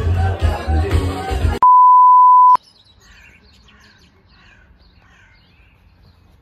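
A single loud electronic beep at one steady pitch, about a second long, starting and stopping abruptly. Before it, music and voices of a lively gathering; after it, quiet outdoor background with faint birds chirping.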